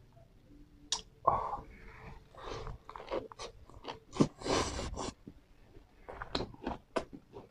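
Biting into and chewing a wrap of fresh lettuce and herbs around banhchheav, a Khmer rice-flour crepe, with irregular sharp mouth clicks and crunches starting about a second in.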